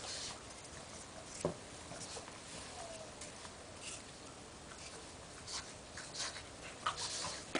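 Faint scattered crunches and pats of snow being packed by hand into a snowman, with a pug moving about through the snow; a brief faint whine about three seconds in.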